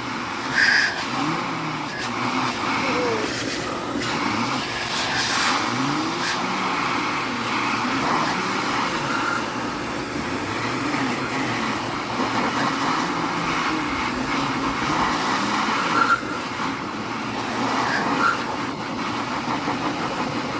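An air blower running steadily, blowing dust and bird feathers out of a space heater.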